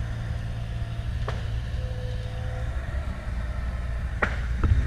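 Footsteps on a wooded slope snapping twigs, a few sharp cracks with the loudest near the end, over a steady low rumble.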